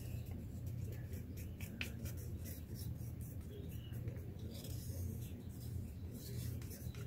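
Wooden stir stick scraping thick two-part silicone mould rubber out of a small plastic cup: faint, irregular scrapes and light ticks. Under them runs a steady low hum.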